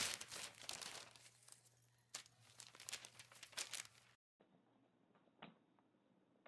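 Crinkling and scratching of a crinkly sheet as a cat paws and claws at it, in quick irregular strokes that stop abruptly about four seconds in. A few faint light taps follow.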